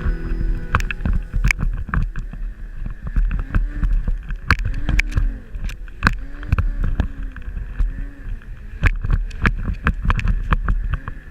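Snowmobile engine running with its pitch rising and falling again and again, under loud wind buffeting and knocks on the microphone. The tail of a music track fades out just before.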